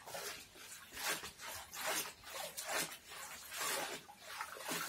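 Hands rubbing and rustling a Cymbidium orchid's roots and leaves while cleaning the plant, a series of irregular scratchy strokes.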